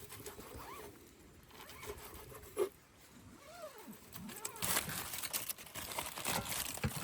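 A few faint, short animal calls that rise and fall in pitch, then a run of crackling from about halfway through.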